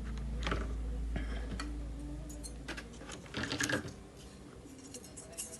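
Scattered light clicks and taps of small parts and tools being handled on a workbench, with a quick cluster of clicks and scraping about three and a half seconds in. A low hum fades out about three seconds in.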